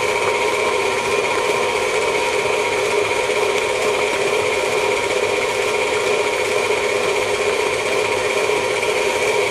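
KitchenAid tilt-head stand mixer running at a steady speed, its motor giving an even whine as the flat beater works eggs into thick choux pastry dough.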